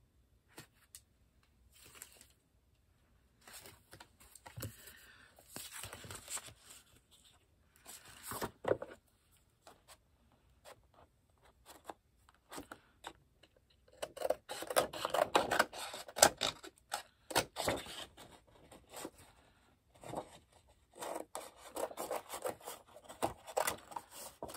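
Paper or cardstock being handled, rubbing and scraping in irregular scratchy bursts, busier in the second half, as a die-cut piece is worked free.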